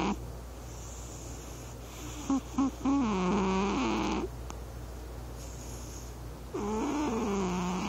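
Devon Rex cat snoring in deep sleep: a few short snorts about two seconds in run into a longer, wavering pitched snore, and another long snore starts near the end.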